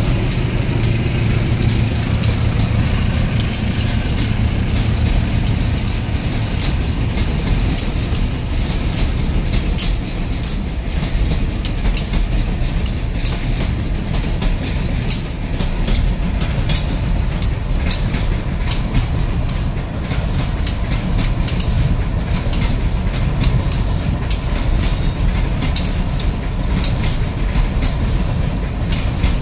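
Freight train wagons passing close by: wheels clicking over the rail joints in a rapid, uneven clatter over a steady rolling rumble. The low rumble is heavier in the first five seconds or so.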